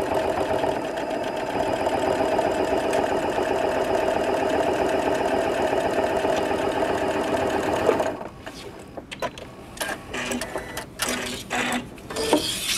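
Janome Continental M7 computerized sewing machine stitching at a steady, even speed through eight layers of denim and on into leather, not slowing on the thick layers. It stops suddenly about eight seconds in, followed by a few short clicks and rustles of handling.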